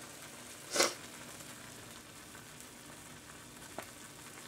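Pot of water with instant ramen noodles boiling on a gas stove: a faint, steady bubbling hiss. A short louder rush of noise comes about a second in, and a faint click near the end.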